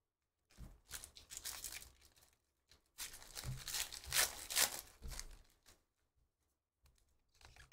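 Foil wrapper of a 2023 Panini Phoenix football card pack being torn open, tearing and crinkling in two stretches, the second louder.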